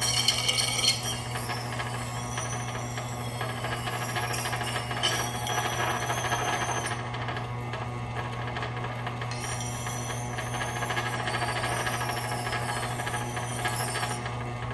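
Axe head being ground on a 23-inch antique wet grindstone: steel scraping on the turning stone with shifting high squeals, over the steady hum of the electric motor driving the wheel. The stone is working the nicks out of the axe's edge.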